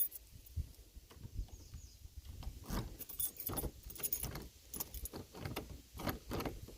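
A large bunch of keys jangling on a ring, with irregular small metallic clicks, as keys are tried one after another in the barn door's lock.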